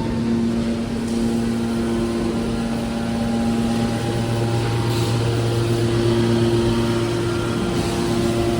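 Horizontal hydraulic metal baler running: its electric motor and hydraulic pump give a steady hum, and the hum changes in tone about halfway through.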